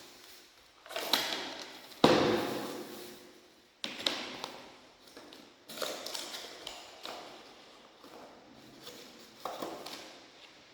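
A series of sharp knocks and clatters of hand tools and fittings being handled during plumbing work, each dying away quickly. The loudest comes about two seconds in.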